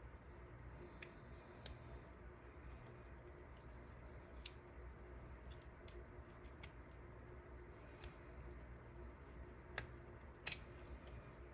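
Scattered small metal clicks and taps of dimple lock pins, springs and cylinder parts being handled and fitted back together, the sharpest about halfway and twice near the end, over a faint steady hum.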